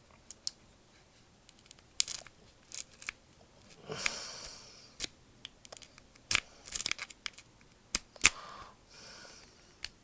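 Lock pick and tension wrench working in a Master Lock No. 5 padlock: irregular small metallic clicks and brief scrapes, with a couple of longer scratchy rasps about four seconds in and again near the end.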